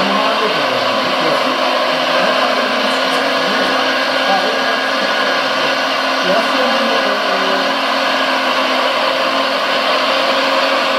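Sound module of a Premacon 1:14.5 RC Liebherr R956 excavator playing a steady diesel engine drone that imitates the full-size machine while it digs.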